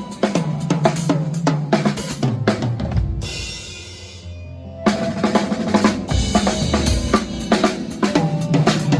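Rock drum kit played hard on stage, with kick, snare and cymbal strikes over a low bass line. A little before the middle the drums drop out, leaving a ringing cymbal wash, then come crashing back in.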